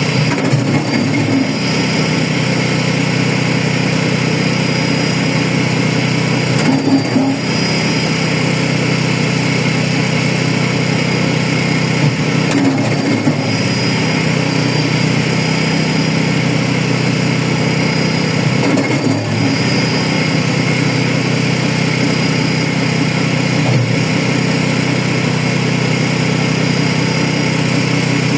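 Engine-driven wood chipper running steadily, its sound changing briefly about every six seconds.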